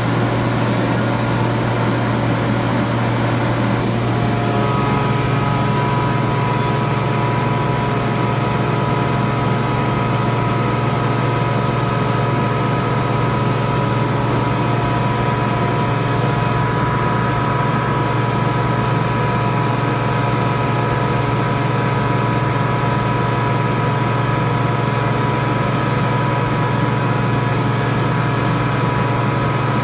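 Sullair oil-flooded rotary screw air compressor (150–200 hp) running steadily: a loud constant drone with a deep hum and two steady whine tones that come in, with a slight rise in level, about four seconds in.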